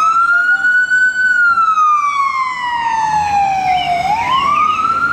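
Ambulance siren sounding a slow wail: the pitch rises, falls slowly over about three seconds, then rises again. A low vehicle rumble joins near the end.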